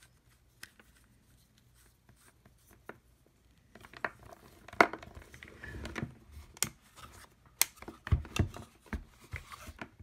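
Hands handling a plastic tire inflator and its 12-volt lighter-plug cord: a few faint clicks at first, then from about four seconds in, scattered sharp plastic clicks and knocks with rustling of the cord, the loudest click just before five seconds.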